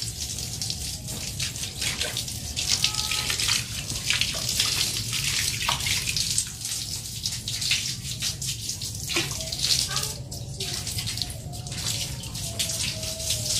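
Water from a garden hose splashing steadily into a shallow concrete pool.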